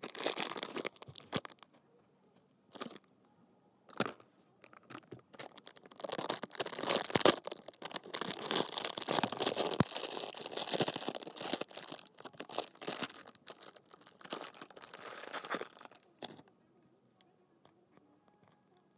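Plastic blind-bag packaging of a Hatchimals squishy toy being torn open and crinkled. It comes in short bursts at first, then runs as a long stretch of crackly tearing and rustling with sharp snaps from about six to sixteen seconds in.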